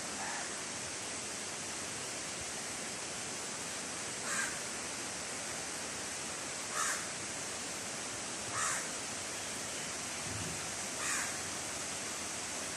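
Steady rain falling on dense vegetation, a continuous even hiss. A bird calls over it four times in short calls, about two seconds apart.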